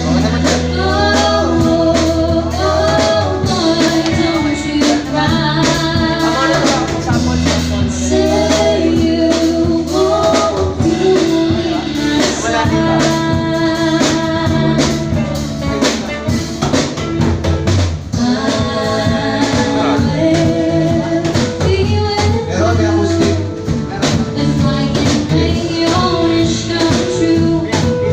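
A live band playing a song: a singer over drum kit, guitar and a steady bass line.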